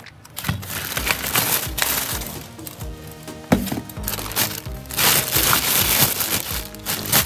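Background music over crackling and crunching of cracked phone glass being broken away. The crackling is densest and loudest about five to six and a half seconds in, with sharp clicks near the middle and at the end.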